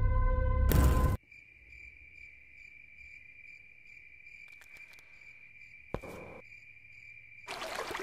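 Loud, dark music cuts off suddenly about a second in, leaving the steady chirping of crickets with a faint regular pulse. A sharp knock comes a little before the end, then water gushes from a tap.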